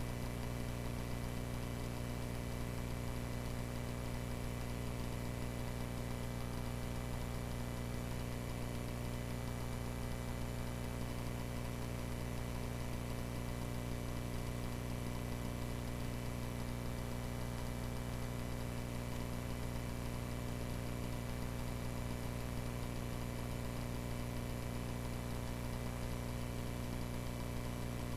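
Cessna 140A's engine and propeller running steadily in flight, heard as an even drone inside the cabin.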